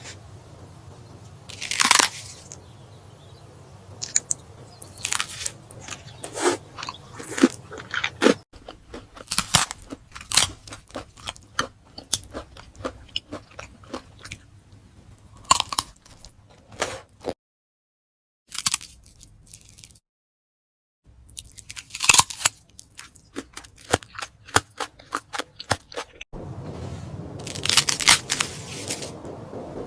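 Close-miked mukbang eating sounds: a person biting and chewing food, with many sharp, crackly crunches and wet mouth clicks. The sound breaks off abruptly several times, with two brief dead silences in the middle.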